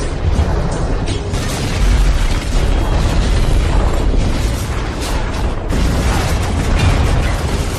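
Repeated explosions: several sharp blasts over a continuous deep rumble as vehicles go up in fireballs, with music running underneath.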